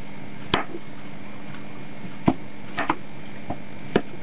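Kitchen knife chopping the ends off cucumbers on a plastic cutting board: about half a dozen sharp knocks of the blade hitting the board, unevenly spaced, over a steady low hum.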